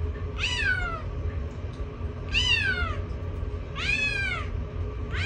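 Kitten meowing: four short calls, each rising then falling in pitch, about a second and a half apart, the last beginning near the end, over a steady low rumble.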